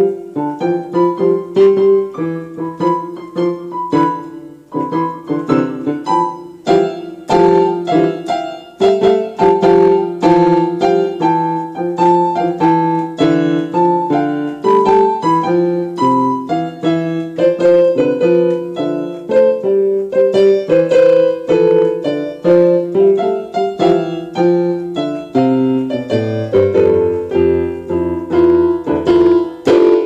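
Solo piano music: a steady stream of struck notes over a lower accompaniment, with the bass stepping down in pitch near the end.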